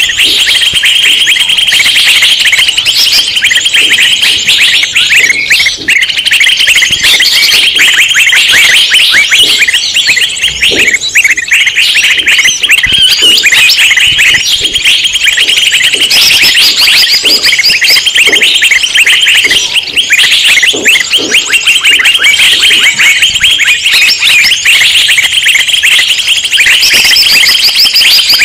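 A loud, dense chorus of many small birds calling at once, rapid overlapping chirps and chatter with no break. It is a noisy flock commotion of the kind played as a lure call to draw in wild birds such as bulbuls.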